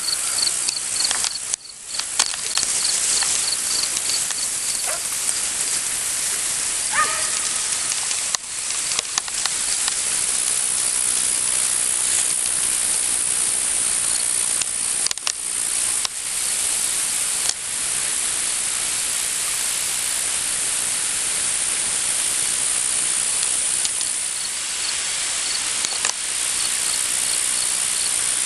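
Steady rain falling: an even hiss with scattered drop ticks. A high, rapid chirping pulses through the first few seconds and again near the end.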